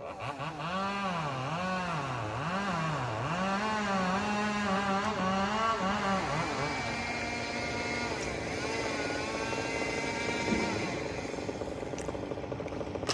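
Two-stroke chainsaw running, its pitch rising and falling over and over for about six seconds as the throttle is worked or the chain loads in the cut, then holding steadier.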